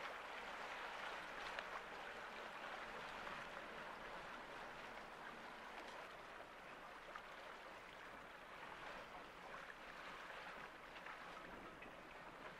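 Water rushing and gurgling along the hull of a small boat under way, a steady hiss with scattered tiny splashes.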